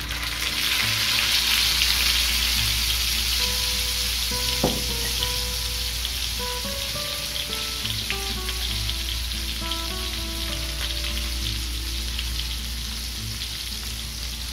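A salmon steak sizzling as it fries in hot browned butter in a nonstick pan. The sizzle is loudest in the first seconds after the fish goes in, then eases slightly. A single sharp tap comes about a third of the way in.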